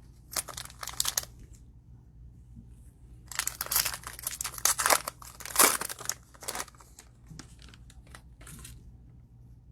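Cellophane wrapper of a trading-card cello pack being torn open and crinkled by hand: a short burst near the start, then a longer run of tearing and crinkling from about three seconds in that dies away near the end.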